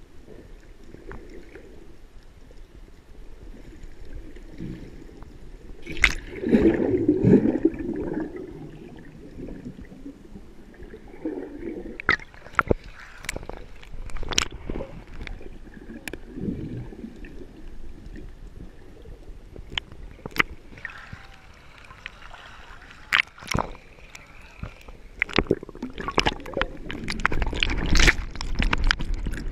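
Sea water sloshing and gurgling around a camera held at the surface as it dips under and breaks through, with sharp splashes and clicks scattered throughout. The sloshing swells loudest about six seconds in and again near the end.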